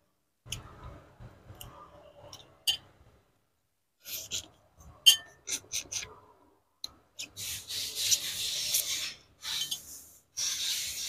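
Close-up eating sounds of a man picking apart a chicken head with his fingers: scattered sharp smacks and small cracks, then longer hissing sucks at the bones about seven seconds in and again near the end.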